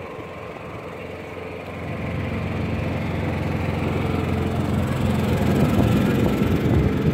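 A steady engine hum that swells louder about two seconds in and stays loud to the end.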